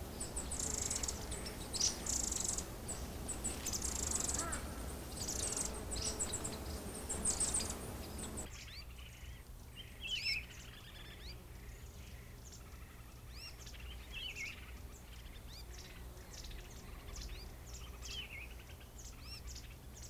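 Rapid, very high, thin calls of firecrests (Taiwan flamecrest), with a steady low hum underneath. About eight seconds in, the sound drops to a quieter forest ambience with scattered whistled calls of other birds.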